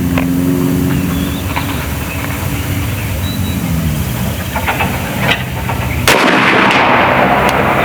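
A .72-calibre AEA Zeus big-bore PCP air rifle fires once about six seconds in: a sudden loud report followed by a rush of noise lasting nearly two seconds. A single click comes just under a second before the shot.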